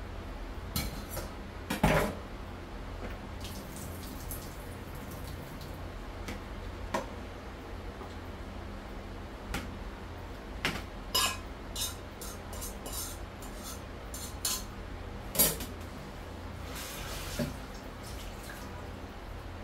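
A frying pan being washed by hand at a kitchen sink: sponge scrubbing, with scattered clinks and clatters of the pan against the sink and other dishes, loudest about two seconds in and again near the end, and water running at times. A steady low hum sits underneath.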